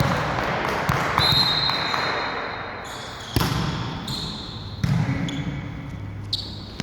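Volleyball game in an echoing sports hall: a murmur of voices and hall noise, a steady high whistle-like tone for about two seconds, then two sharp ball thuds, about three and a half and five seconds in.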